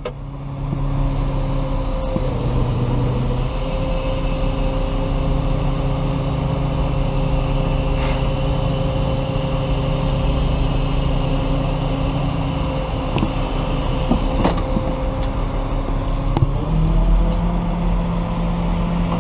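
A 30-ton crane's engine running steadily under load as it picks a cut section of red oak. Its pitch dips and comes back a couple of seconds in, then climbs near the end, and a couple of sharp clicks sound around the middle.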